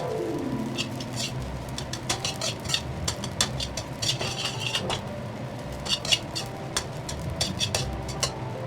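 Metal spatula scraping and clinking against a wok while fried rice is stir-fried, in irregular sharp knocks. A short falling tone sounds right at the start.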